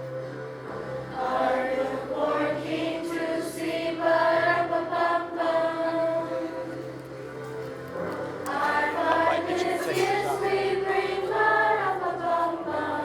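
Middle school choir singing a holiday song in unison, with sustained sung notes over a steady low accompaniment.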